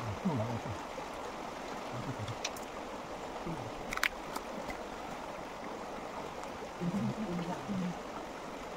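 Shallow stream running steadily over stones, an even rushing of water. A single sharp click sounds about four seconds in.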